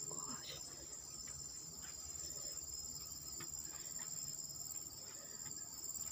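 Steady high-pitched insect chorus in tropical forest, with a few faint taps that fit footsteps on stair treads.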